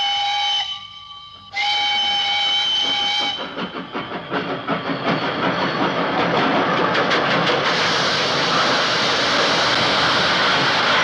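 Steam locomotive whistle: one blast cuts off just after the start and a second, about two seconds long, follows about a second and a half in. Then the locomotive's rhythmic chuffing comes in rapid beats, giving way near 8 s to a loud, steady hiss of escaping steam.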